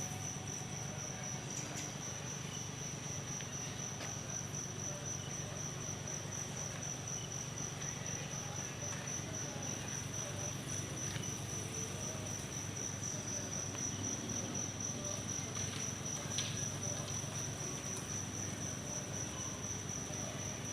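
An insect chirping in a steady, evenly pulsing high trill without a break, over a low steady hum.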